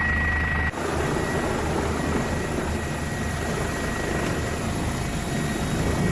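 Helicopter running: a steady, loud drone with a thin high whine over it. The sound changes abruptly under a second in, where the footage cuts.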